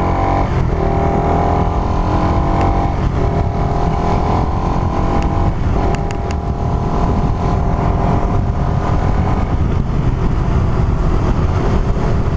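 Suzuki Raider R150 Fi's single-cylinder four-stroke engine running under way, its note dropping at gear changes about half a second, three and six seconds in, then holding steady. Revs are kept low, under 6000 rpm, as the engine is being run in. Low wind rumble on the microphone underneath.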